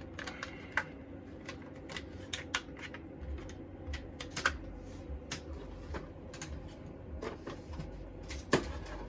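Irregular sharp clicks and light taps, one or two a second, from parts and tools being handled on a workbench, over a faint steady hum.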